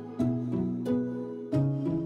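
Instrumental background music of plucked notes, three new notes striking in turn over sustained tones.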